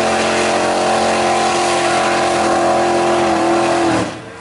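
Big-block V8 race engine of a Mazda-bodied mega mud truck held at high revs as the tires churn through the bog, with mud and water spraying. The steady engine note drops off abruptly about four seconds in.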